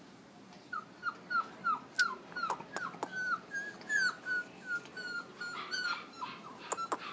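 West Highland white terrier puppy whimpering in a quick series of short, high, slightly falling cries, about three a second, starting about a second in. A few sharp clicks come between them.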